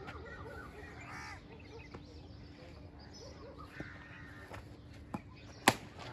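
Birds calling now and then with harsh, arched calls over an open-air background. A single sharp crack near the end is the loudest sound.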